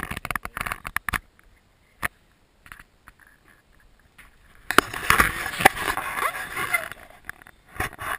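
Rustling, scraping and several knocks and clicks from a person moving about and handling things, with a denser stretch of rustling about two-thirds of the way through.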